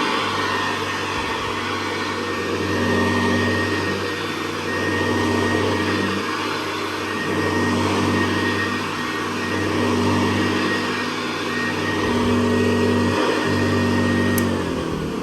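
Hoover Convertible Model 68 upright vacuum cleaner running, a steady motor hum with a high whine, its loudness swelling and easing every couple of seconds as it is worked back and forth. Near the end there is a click, then the whine drops in pitch as the machine is switched off and starts to wind down.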